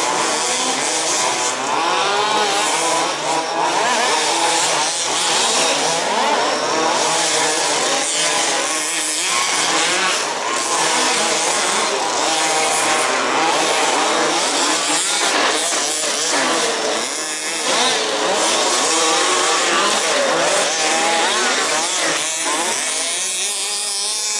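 Several 1/5-scale RC off-road race cars' small two-stroke petrol engines buzzing together, each rising and falling in pitch as the cars accelerate and back off around the track.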